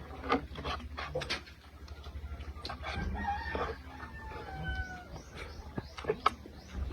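A rooster crows once, a long call starting about three seconds in and lasting over a second, over close-up clicks and smacks of eating.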